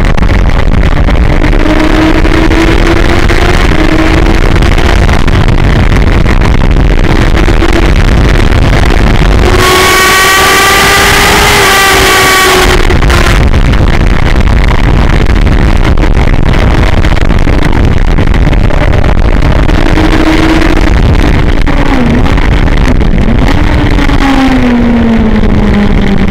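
Onboard sound of a sport motorcycle lapping a race circuit at speed: the engine note climbs and drops through the gears under heavy wind noise on the microphone. About ten seconds in, a louder, higher engine sound sweeps in for about three seconds. Near the end the pitch dips and falls as the bike slows.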